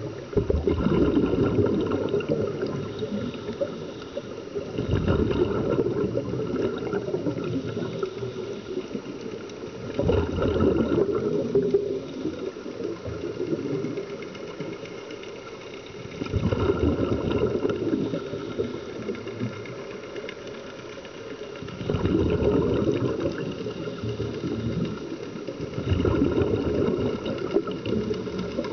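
Scuba regulator exhaust bubbling underwater: a burst of bubbling every five to six seconds, once with each breath out, with quieter water noise between.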